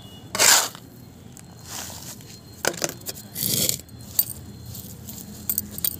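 Dry potting soil scooped and dropped by hand into a clay pot, in several short rustling, scraping pours, the loudest about half a second in. Wrist bangles jingle along with the hand movements.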